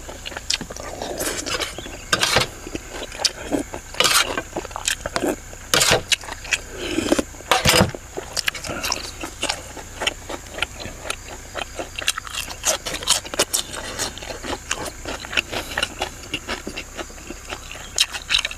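Close-up eating sounds: chewing and lip smacking, with irregular sharp clicks throughout. A few louder smacks come in the first half.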